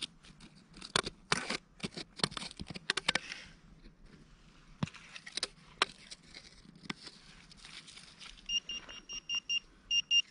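Hand rummaging in loose soil and dry leaves, rustling and crackling with sharp clicks, then a few isolated clicks. Near the end a metal detector beeps rapidly, short high beeps about four a second.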